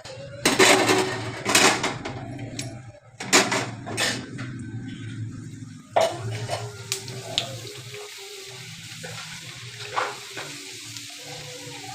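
Hot oil in a kadhai sizzling in bursts as papads fry, with clinks of a metal utensil against the pan and a steady low hum in the second half.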